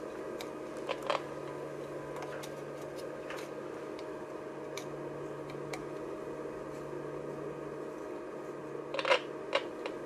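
Steady hiss and low hum from a homemade AM radio kit's speaker, with only a faint steady tone in it: the 1 kHz modulation of the 455 kHz test signal is barely getting through the IF stage. A few clicks from handling the board and test clip come about a second in and again near the end.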